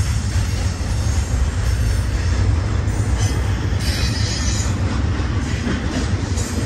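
Cars of an intermodal freight train rolling past close by: a steady heavy rumble of steel wheels on rail, with brief high wheel squeals about three to four seconds in and again near the end.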